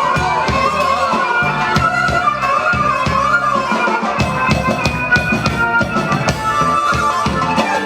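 Live band playing an Arabic pop song: a drum kit keeps a steady beat under a wavering, ornamented melody line.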